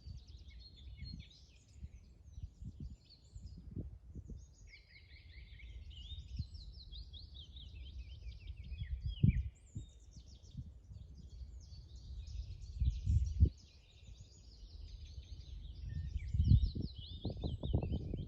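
Songbirds singing continuously with quick chirps and trills, over irregular low rumbling thuds that are loudest about nine and thirteen seconds in and toward the end.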